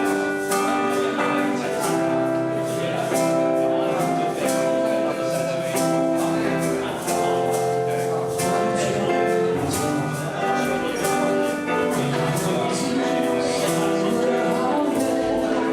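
Live acoustic-guitar band music: guitars strummed in a steady rhythm under a melody of long held notes.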